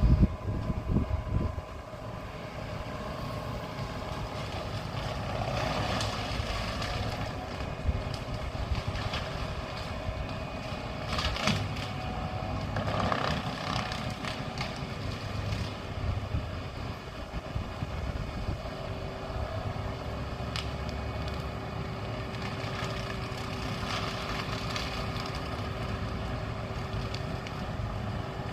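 A large engine running steadily, likely the tree crew's truck or equipment, with a few brief louder surges partway through.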